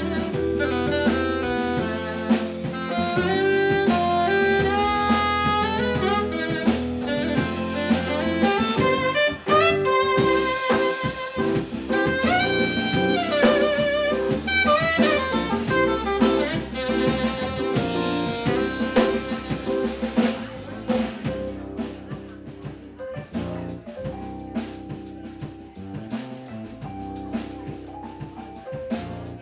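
Small jazz band playing live: an alto saxophone carries the melody over electric bass, keyboard and drum kit. About two-thirds through, the saxophone line drops out and the band plays on more quietly.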